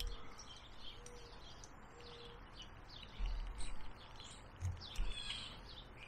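Small birds chirping repeatedly in short high calls, with a few dull low thumps about three and five seconds in.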